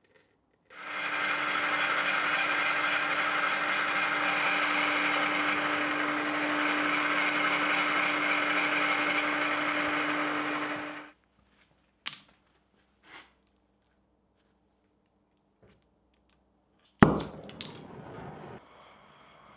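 Drill press running with a steady hum as its twist bit cuts through a skillet's steel handle plate, stopping after about ten seconds. A few light clicks follow, and near the end a gas torch is lit with a sudden loud pop and then burns with a soft hiss.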